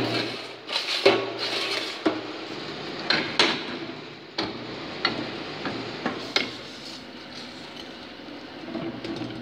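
Manual Lego-brick press being worked, steel on steel: scraping as the feed box of brick mix slides over the mould, then a series of sharp metal clanks and knocks as the lid and pressing lever are swung into place.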